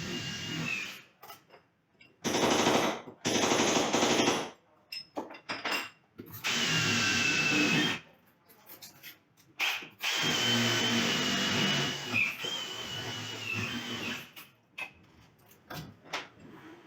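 Electric drill run in about four bursts of one to two seconds each, with short pauses between them.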